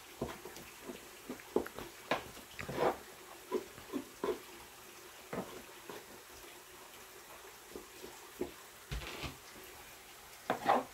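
Irregular light clicks and knocks of kitchen work, some with a brief ring, and a short hiss about nine seconds in.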